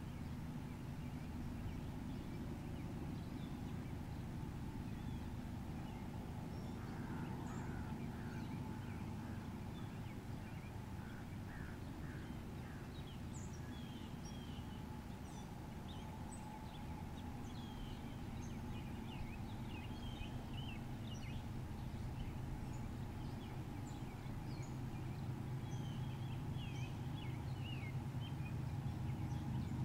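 Birds chirping and calling, with a quick run of repeated notes about a third of the way in, over a steady low rumble that grows louder near the end.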